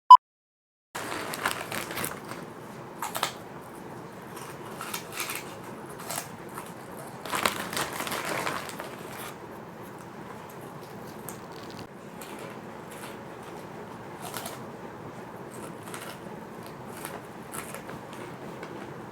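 A single short electronic beep at the very start, then irregular crunching and crinkling of fish crackers being bitten and chewed, with the densest crunching about seven to nine seconds in.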